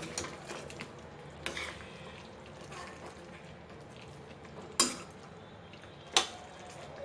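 A spoon stirring the curry in a cooking pot, with a few sharp knocks of the spoon against the pot; the two loudest come about five and six seconds in.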